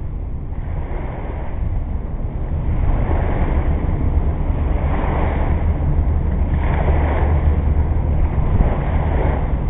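Wind buffeting the microphone: a steady low rumble with gusty surges every couple of seconds, louder from about two and a half seconds in.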